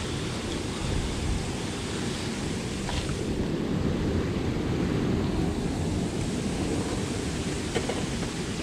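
Steady low rushing noise of wind buffeting the microphone over churning canal water below, with a couple of faint clicks, about three seconds in and near the end.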